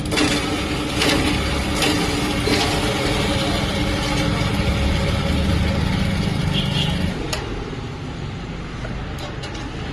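A motor-driven chopping machine running with a steady hum and several knocks in the first few seconds. About seven seconds in the heavier running drops away to a quieter hum, with a few sharp clicks near the end.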